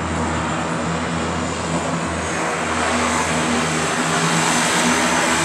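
Engine and propeller drone of a single-engine skydiving plane taxiing on the runway, steady in pitch and growing louder as it comes nearer.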